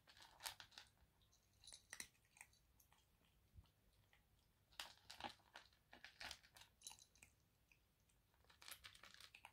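A kitten crunching dry kibble, faint, in several short bouts of quick crunches with pauses between them.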